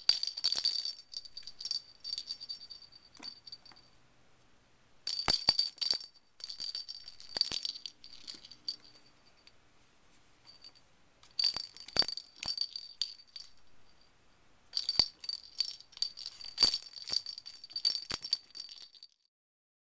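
A kitten's bell toy jingling and rattling across a hardwood floor as the kitten bats and pounces on it. The sound comes in five spells of a few seconds each, with quiet between them, and stops abruptly near the end.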